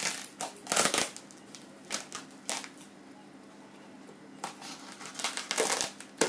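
Box cutter slicing and scraping through packing tape and cardboard wrapping, with the wrapping rustling as it is handled: short scratchy strokes in two spells with a quieter pause of over a second in the middle.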